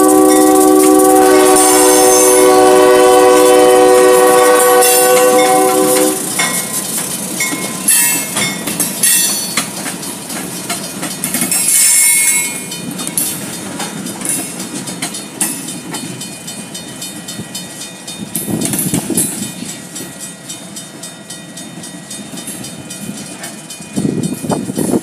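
Union Pacific diesel locomotive's air horn sounding one long chord, cutting off about six seconds in. Then freight cars rolling past, their wheels clacking over the rail joints.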